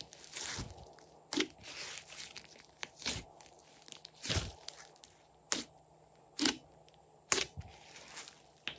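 Hands kneading and squeezing a large mass of thick glossy slime: wet squelches with sharp sticky pops at irregular intervals, roughly one a second.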